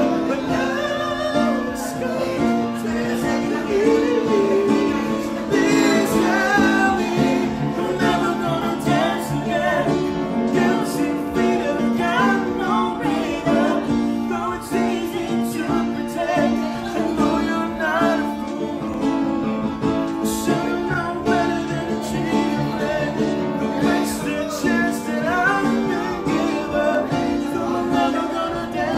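A man and a woman singing a song together, accompanied by acoustic guitar and piano.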